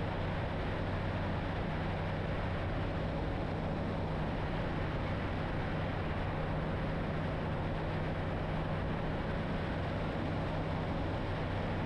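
Kitfox STi light aircraft's engine and propeller droning steadily in cruise, with an even low hum that holds the same pitch throughout.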